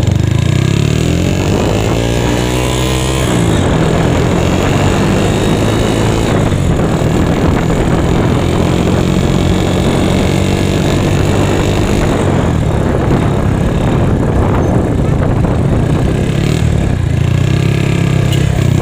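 Honda Megapro single-cylinder four-stroke engine, swapped into a Yamaha Mio scooter, running as the bike rides along. Its pitch climbs over the first few seconds as it picks up speed, then it runs steadily.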